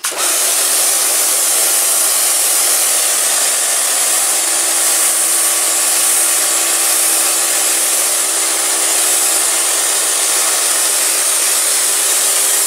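Kärcher K2 electric pressure washer running, its pump motor humming steadily under the loud hiss of the high-pressure water jet spraying onto floor tiles. It cuts in suddenly at the start and holds steady.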